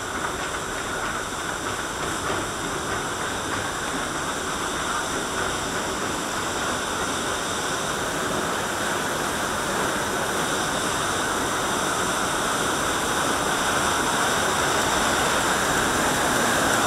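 Steady rush of churning water around a river-rapids raft, growing slowly louder.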